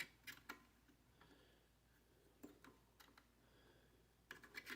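Faint scattered clicks and taps of USB plugs and cables being handled and pushed into a motherboard's rear ports, with a quick run of clicks near the end.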